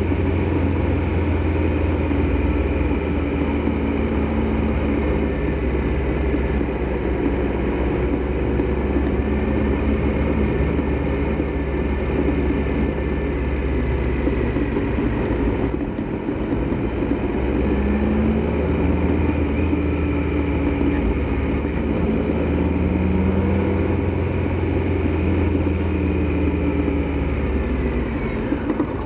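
Triumph Tiger Explorer XRx motorcycle's three-cylinder engine running while riding, with a steady low wind rumble on the microphone. The engine eases off about halfway through, then rises in pitch again as the bike picks up speed.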